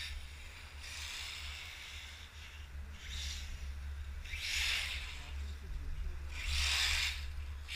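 Radio-controlled car driving past close by on an asphalt track, each pass a short swishing hiss of tyres and motor, the loudest about four and a half and seven seconds in, over a steady low hum.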